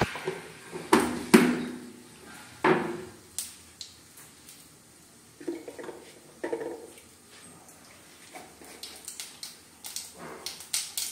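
Steel kitchen utensils clattering: a few sharp metallic knocks with a short ring in the first three seconds, two more a few seconds later. From about two-thirds of the way through, scattered small clicks and crackles come thicker, as mustard and cumin seeds begin to splutter in the hot oil.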